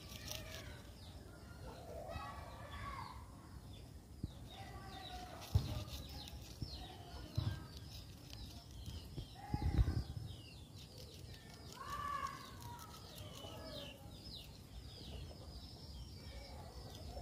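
Small birds chirping in many short, quick calls, with occasional lower calls mixed in and a few dull knocks about five, seven and ten seconds in.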